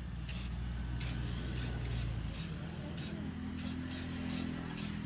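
Aerosol spray paint can sprayed in quick short spurts: about ten brief hisses, roughly two a second.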